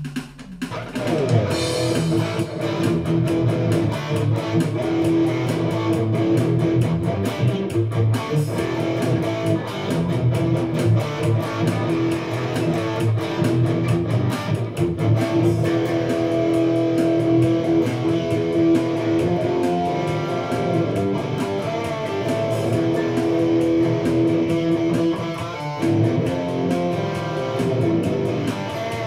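Electric guitar playing, starting abruptly and keeping up a continuous run of sustained notes and chords.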